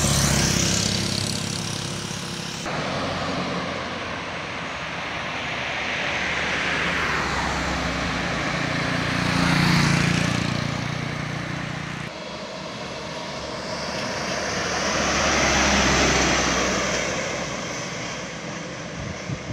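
Road traffic passing close by on a downhill road: loaded sugarcane trucks, a car and motorcycles go by one after another, the tyre and engine noise swelling and fading with each pass. The sound breaks off abruptly twice, at about three seconds and about twelve seconds in.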